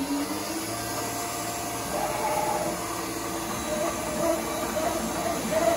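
Tree 425 Journeyman CNC knee mill running a pocketing routine: steady motor hum from the spindle and the servo-driven axes. A whine rises at the start, and other whining tones shift in pitch as the axes move.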